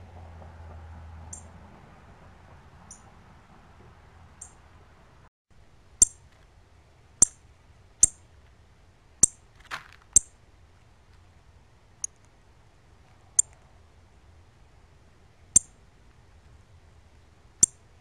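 Male northern cardinal giving sharp, high chip calls, each one short and clipped, repeated every one to two seconds; a few faint ones at first, then louder from about six seconds in.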